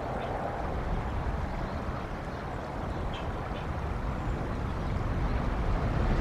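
Steady low rumble of wind buffeting an outdoor cam microphone, growing a little louder near the end, with a few faint, short, high bird chirps.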